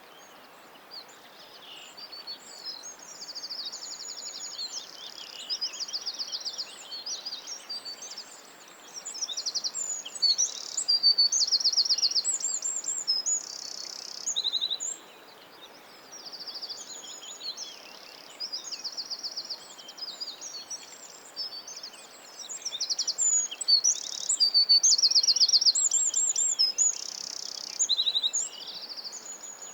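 Several songbirds singing together in a forest, with high, fast trills and chirps overlapping almost without pause. The song swells louder in the middle and again later, over a steady faint hiss of background noise.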